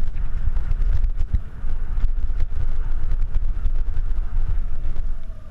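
Wind buffeting the microphone of a camera riding on a mountain bike descending a downhill trail, over the rumble of tyres on dirt and the rattle and knocks of the bike over rough ground.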